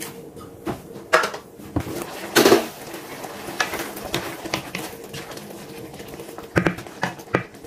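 Glass lid taken off a non-stick frying pan with a clatter, loudest about two and a half seconds in, then a spatula stirring a thick chicken curry with scattered clicks and knocks against the pan.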